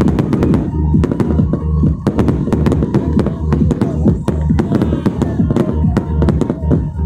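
Fireworks bursting in rapid succession, several bangs and crackles a second, over loud music with a heavy pulsing bass.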